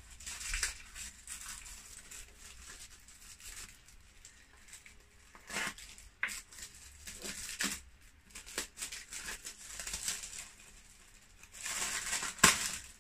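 Hands handling motorcycle parts: scattered rustling with light clicks and knocks, and one sharp click near the end.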